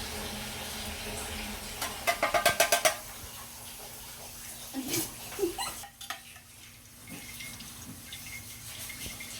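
A metal utensil clinks rapidly against a tuna can or dish for about a second, some two seconds in, as canned tuna is being strained from its sauce; a few softer knocks follow, over a faint steady low hum.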